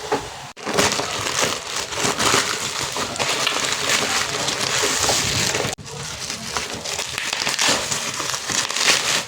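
Packaging being crinkled and rustled by hand as a PR package is unboxed, a dense run of crackles and crinkles broken twice by a sudden brief gap.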